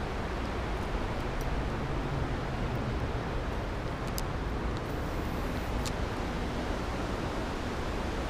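Steady wind noise on the microphone over the rush of a swollen creek, with a couple of faint clicks about four and six seconds in.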